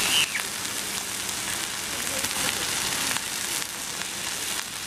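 Beef and vegetables sizzling on a hot grill pan over a portable gas stove: a steady frying hiss.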